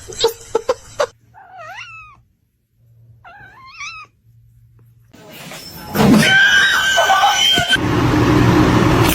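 A few knocks, then a cat meows twice in short, wavering calls. From about five seconds in comes much louder, drawn-out cat yowling that turns rough and noisy near the end.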